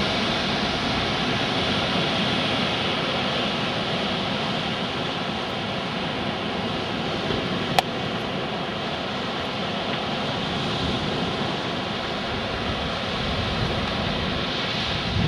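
Steady rush of wind and breaking surf on an open beach ahead of an approaching severe thunderstorm, with one sharp click about halfway through.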